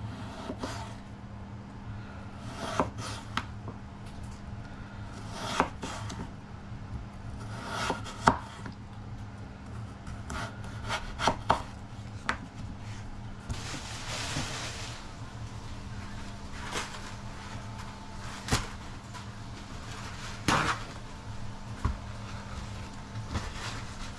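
Chef's knife slicing a peeled raw potato into thin slices on a wooden chopping board, the blade knocking on the board at irregular intervals, with a longer scrape about halfway through.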